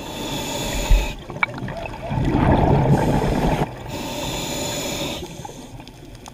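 Scuba diver breathing through a regulator underwater: two breaths, each a hiss of about a second to a second and a half, followed by quieter bubbling.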